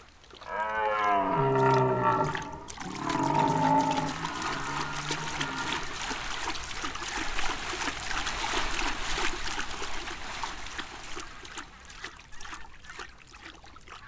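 Red deer stag roaring twice, two deep drawn-out calls of a couple of seconds each. Then water splashes steadily as deer run through the shallows, fading away near the end.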